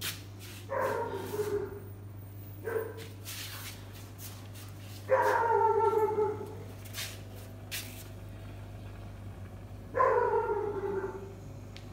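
American bully dog whining in drawn-out calls that fall in pitch: a short one about a second in, a brief one near three seconds, a louder, longer one about five seconds in, and another about ten seconds in.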